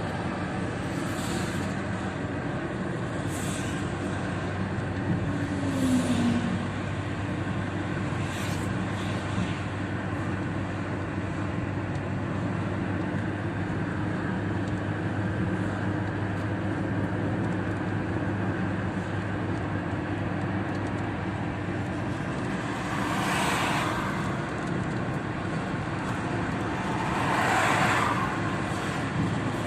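Car cabin at motorway speed in rain: a steady drone of road and engine noise with rain on the windshield. Several brief swishes come in the first ten seconds, and two longer, louder whooshes swell and fade near the end.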